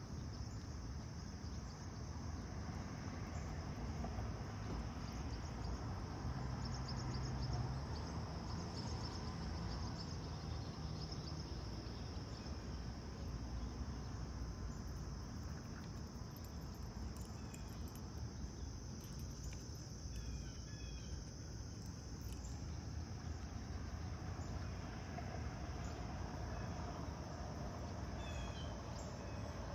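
Steady chorus of crickets chirping, over a low background rumble.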